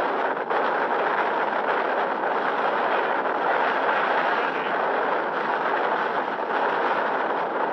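Strong wind rushing in a loud, steady stream, the continuous train-like roar of a tornado.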